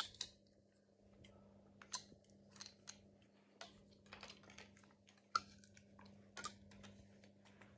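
Faint, scattered clicks and taps of plastic Lego bricks being handled and pressed together, at irregular intervals, the sharpest about five seconds in, over a low steady hum.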